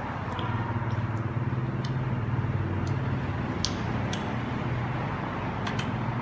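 A person chewing crunchy green June plums (ambarella), with short crisp mouth clicks every second or so, over a steady low hum.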